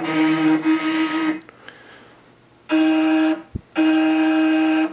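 NEMA 23 stepper motors driving a CNC router table's axes as they are jogged, a steady pitched whine. It stops about a second and a half in, returns briefly near three seconds, and starts again just before four seconds. There is a short low thump between the second and third runs.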